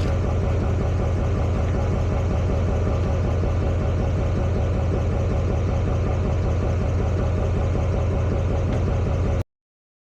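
Vehicle engine idling steadily, then cut off abruptly about nine and a half seconds in.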